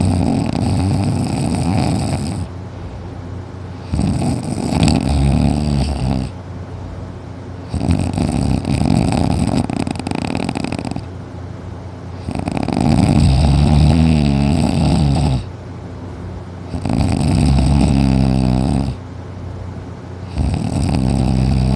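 Super loud snoring from a deep sleeper: long snores of two to three seconds each, repeating about every four seconds, six in all, with quieter breathing between them.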